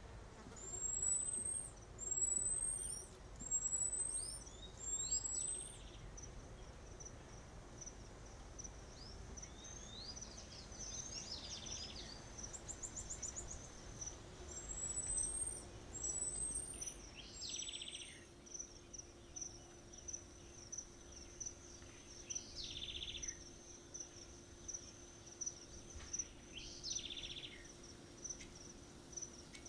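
Outdoor animal calls over a steady high insect trill: high, short whistles rising in pitch, four in a row in the first few seconds and three more in the middle, with shorter falling chirps every few seconds.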